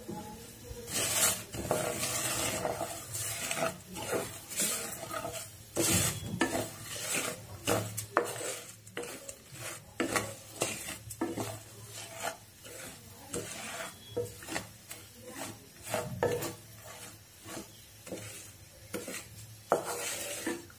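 Wooden spatula stirring and scraping granulated sugar around a non-stick pan in irregular gritty strokes, about once or twice a second. The sugar is melting in a little ghee on its way to caramel.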